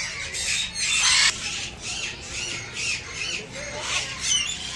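Many birds calling over one another: harsh squawks, loudest in the first second or so, then a busy chatter of short chirps and whistled notes.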